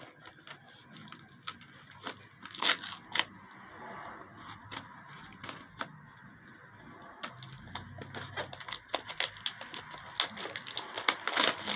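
Topps baseball-card blaster box being torn open: the plastic wrapper and cardboard crinkle and rip in irregular crackles. The loudest tearing comes about three seconds in and again near the end.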